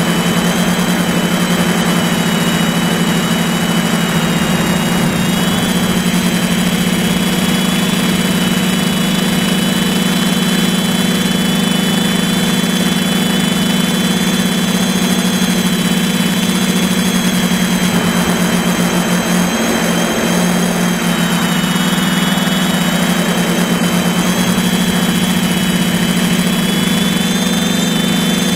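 Electric motors and propellers of a Pixhawk-controlled drone, picked up by its own onboard camera: a steady, loud hum with a high motor whine that shifts slightly in pitch as the motors adjust.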